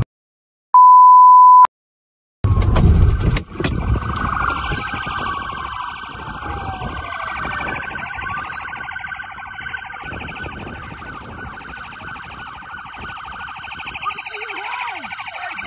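A steady electronic beep lasting about a second, between two brief dropouts, then a short burst of rumble. A police car siren then wails on, sliding slowly up and down in pitch, to the end.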